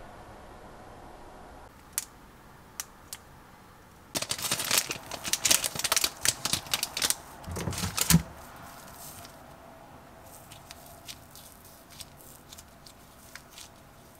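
Crinkling and rustling of a small packet's paper wrapper as it is torn open and crumpled in the fingers: a few light clicks, then a dense crackling burst of about four seconds that ends in a soft thump, then faint ticks.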